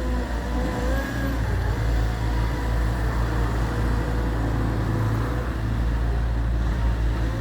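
Gehl V420 skid steer loader's diesel engine running steadily with a low drone, with a faint higher whine coming and going over it.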